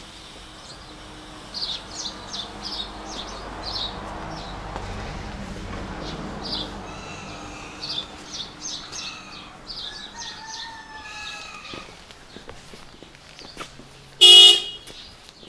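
Small birds chirping repeatedly while a motor vehicle passes, its rush swelling and fading in the middle. Near the end comes one short, loud horn toot.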